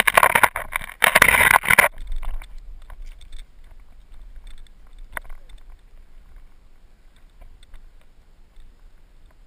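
Hikers climbing a chained sandstone ridge, heard through a body-mounted action camera. A loud rush of noise hits the microphone for about two seconds. After that come faint scattered clicks and scuffs of footsteps on rock and the handhold chain, one sharper click about five seconds in, under a low rumble.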